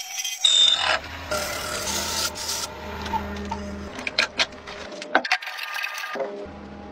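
Wood lathe running with a low motor hum while a turning tool scrapes the spinning wood, then several sharp clicks and taps as wooden parts are fitted to the chuck by hand. The sound changes abruptly a few times.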